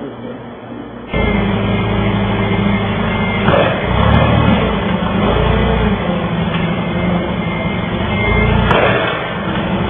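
A forklift engine running close by, starting loud about a second in, with two sharp knocks at about three and a half seconds and near the end.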